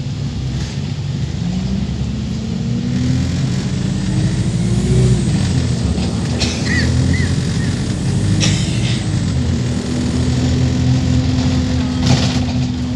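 Wright StreetLite Max Micro-Hybrid single-deck bus heard from inside the saloon, its diesel engine and automatic gearbox pulling away: the engine note climbs, drops sharply at a gear change about five seconds in, climbs again and then holds steady. The uploader says this bus's gearbox is very obviously dodgy and sounds in urgent need of replacement.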